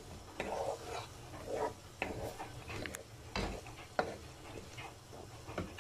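A wooden spatula stirring potato pieces through thick, frying tomato masala in a pan, giving irregular scrapes and knocks against the pan with a soft sizzle.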